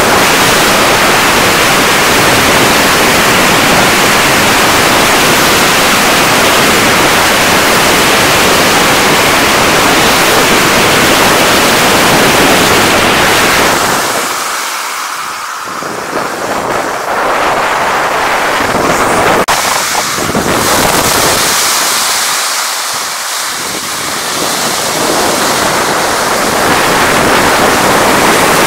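Loud, steady rushing noise of wind on an action camera's microphone and skis running over snowy lake ice while snowkiting at speed. The rush eases twice, briefly, about halfway through and again about two-thirds of the way in.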